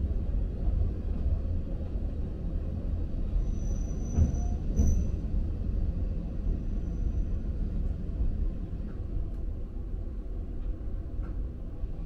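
A former Seibu Red Arrow electric train car running on rails with a steady low rumble. A thin high-pitched wheel squeal rises and breaks off twice about four to five seconds in, and returns more faintly a couple of seconds later.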